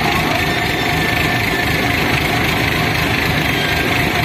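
Diesel engine of an ACE 12XW pick-and-carry crane running steadily while the crane holds a steel chimney section up on its hook.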